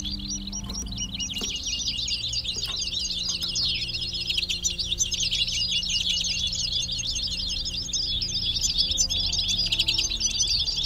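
Caged European goldfinches and greenfinches singing and calling without a break, a dense, continuous twittering. They are call birds used to lure passing wild finches to the trapping net.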